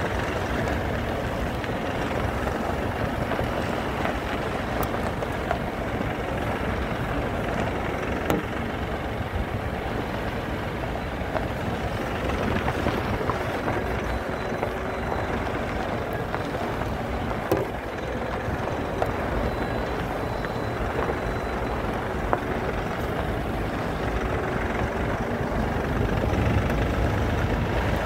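Mahindra Bolero driving over rough off-road ground: steady engine and tyre rumble with occasional sharp knocks and rattles as it goes over bumps.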